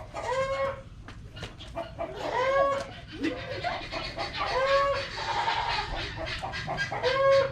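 A young goat kid bleating four times, about every two and a half seconds, each a short high call that rises and falls.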